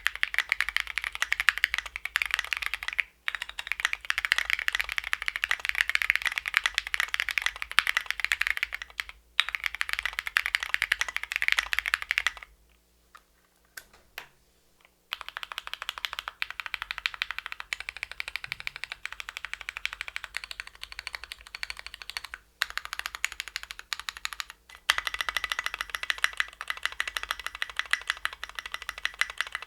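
Fast, continuous typing on a custom mechanical keyboard with lubed Cherry MX Black linear switches, tall SA-profile keycaps and a gasket-mounted polycarbonate plate. Typing stops for about two seconds near the middle, with a few shorter breaks elsewhere.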